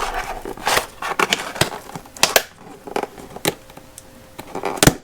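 Irregular crackling, scraping and clicking of a cardboard box being handled while its adhesive seal labels are peeled and slid off.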